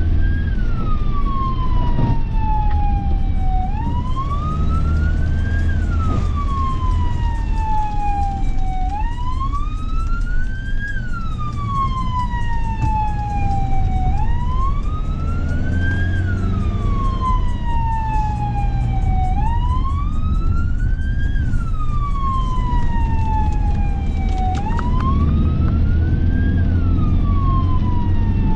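Fire-rescue truck's siren wailing, each cycle a quick rise and a long slow fall, repeating about every five seconds, heard from inside the cab over the steady low rumble of the engine and road.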